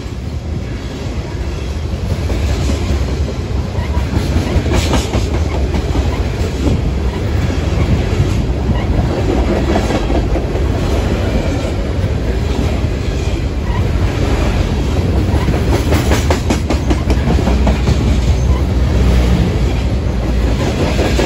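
A train rolling past: a steady rumble of wheels on rail, with groups of sharp clicks as the wheels cross rail joints.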